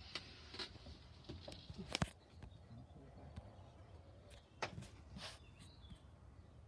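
Dog shifting about on a camper van bed: a few faint, scattered knocks and clicks, the sharpest about two seconds in. A faint short chirp about five and a half seconds in.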